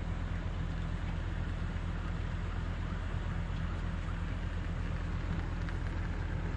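An engine running steadily at an even speed: a low, unchanging hum with a rough hiss above it.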